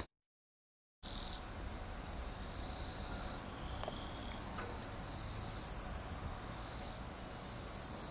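Insects chirping in overlapping high-pitched stretches over a low steady rumble, starting after about a second of silence. One sharp click about four seconds in.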